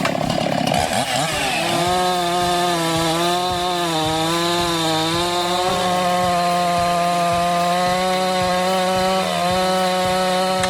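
Chainsaw running under load as it cuts through wood, its engine pitch wavering and dipping as the chain bites.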